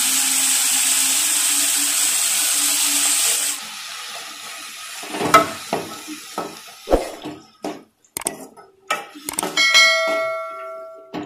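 Chopped carrot and amaranth stems sizzling in hot oil in a metal kadai, the sizzle cutting off suddenly about three and a half seconds in. Then a spoon stirring, knocking and scraping against the pan, and near the end one knock sets the pan ringing.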